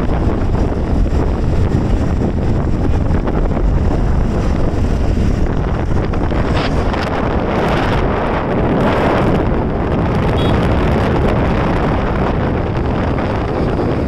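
Wind rushing over the microphone of a phone carried on a moving motorcycle, a loud steady rush mixed with road and engine noise.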